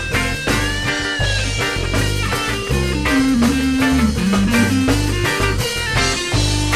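Reggae band's instrumental break: a guitar melody with bent notes over a steady bass and drum groove.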